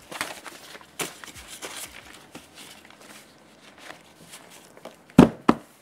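Paper documents and a plastic folder handled, with rustling and small clicks throughout, then two sharp thumps about a third of a second apart near the end.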